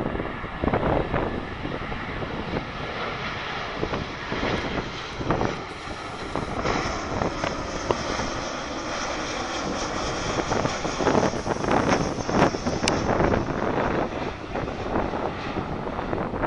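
Jet noise from a Boeing 737 airliner's twin turbofan engines as it passes overhead on final approach with its gear down: a steady rushing roar that grows fuller and brighter about halfway through. Gusts of wind buffet the microphone throughout.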